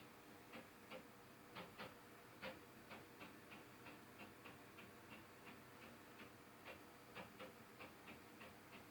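Faint, irregular tapping heard through the ceiling from the condo upstairs: a run of sharp ticks, about two to three a second, unevenly spaced and varying in strength.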